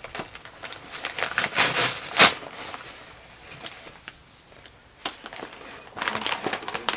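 Packaging bag crinkling and rustling in bursts as it is handled and worked open, loudest in a sharp crackle about two seconds in, quieter in the middle, then picking up again near the end.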